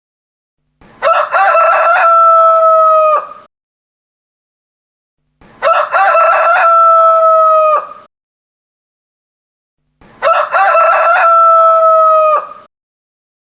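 Rooster crowing three times, evenly spaced, with dead silence between. Each cock-a-doodle-doo lasts about two and a half seconds, opening with short broken notes and ending in a long held note that drops off at the end. The three crows are identical, the same crow repeated.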